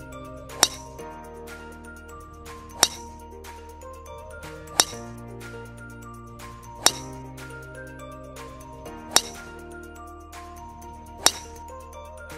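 Background music with sustained chords, marked by a sharp clinking hit about every two seconds.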